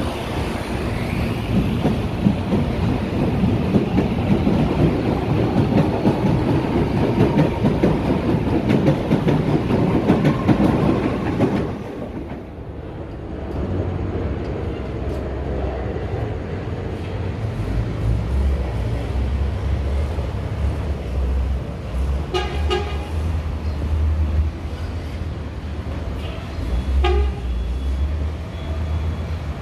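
A CAF-built CPTM electric multiple unit pulls out of the platform: wheel and rail noise with a rising motor whine as it gathers speed, which cuts off abruptly. Then a steady low rumble, through which an approaching electric train gives two short horn blasts about five seconds apart.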